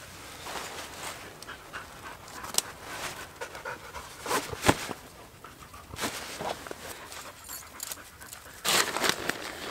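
A dog panting, with scattered clicks and rustling as tent corner loops are hooked over stakes; a louder rustle comes near the end.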